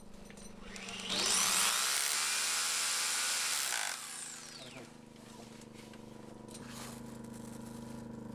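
Hammer drill boring into rock for about three seconds, spinning up about a second in and winding down around four seconds in. It is drilling a hole to set an anchor bolt for rigging a rope descent.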